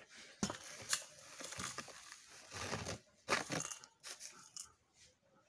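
Plastic scoop digging soda ash powder into a metal bowl on a scale: a run of irregular, crunchy scrapes as the dry granules are scooped and dropped in.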